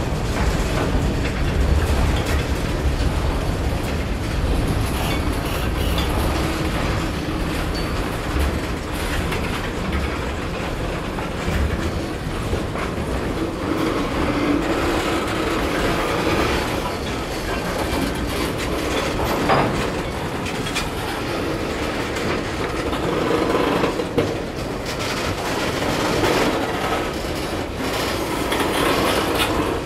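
Freight train of tank cars and autorack cars rolling past close by: a steady rumble with steel wheels clicking over the rail joints.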